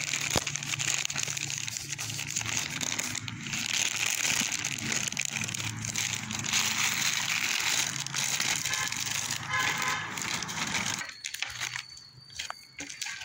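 Plastic courier mailer pouch crinkling as it is handled and opened by hand. The crinkling stops about eleven seconds in and gives way to a few light clicks.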